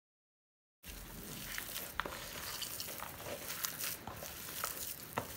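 Hands squishing and kneading a moist mashed beef-and-dal kabab mixture in a plastic bowl, with soft wet smacks and small clicks. It starts about a second in, after dead silence.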